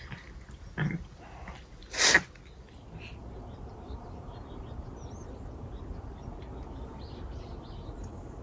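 Cats eating churu paste treats: faint wet licking and small mouth clicks. These are broken about a second in and again at two seconds by two short, sharp noises from the cats, the second the loudest.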